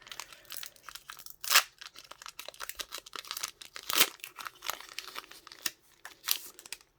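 A Pokémon trading card booster pack being torn open, its foil wrapper crinkling and tearing in dense crackles. The sharpest, loudest rips come about a second and a half in and again about four seconds in.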